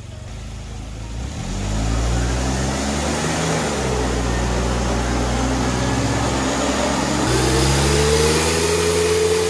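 Suzuki Jimny JB23W's 660 cc turbocharged three-cylinder engine pulling under load on a chassis dynamometer through its automatic gearbox. The engine pitch climbs over the first few seconds, drops back about three and a half seconds in, then climbs again from about seven seconds in. This is a baseline power run of a tired, unmodified engine with about 110,000 km on it and an air filter and plugs long unchanged.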